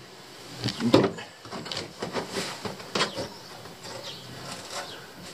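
Handling noises: scattered knocks and rustling, with sharper knocks about a second and about three seconds in.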